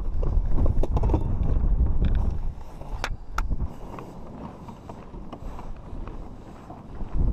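A plastic ice-fishing sled scraping over lake ice, with knocks and the rumble of wind on the microphone, loudest in the first couple of seconds. Two sharp clicks come about three seconds in, and then it goes quieter.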